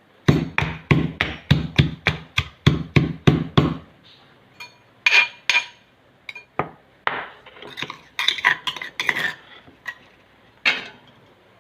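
Pestle pounding fresh herb leaves in a mortar: about a dozen quick, even strikes, three or four a second, for the first four seconds. After that come scattered lighter clinks and scrapes of metal on the vessel.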